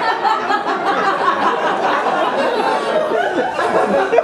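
Theatre audience laughing, many voices overlapping, in response to a joke.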